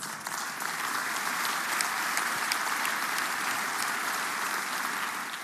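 A large audience applauding, many hands clapping together in a dense, steady wash.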